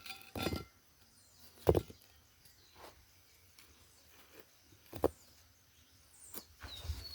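Stones knocking together a few times as they are laid, sharp single knocks with the loudest nearly two seconds in. A bird chirps near the end.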